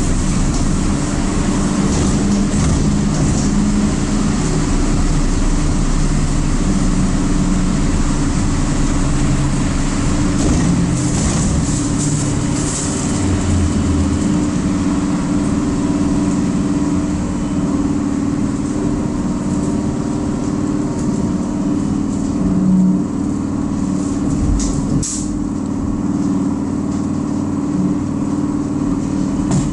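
Inside a moving trolleybus: steady ride noise with a low hum from its electric drive and road noise from the wet street. A sharp click about 25 seconds in.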